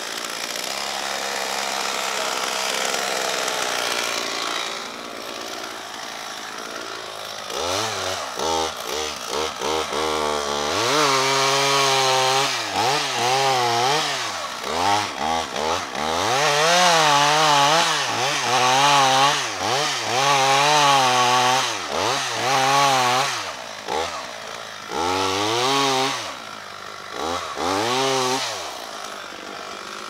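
Stihl MS 440 two-stroke chainsaw with a 63 cm bar cutting into the base of a spruce trunk. For the first several seconds it runs steadily, then from about eight seconds in the engine pitch rises and falls over and over.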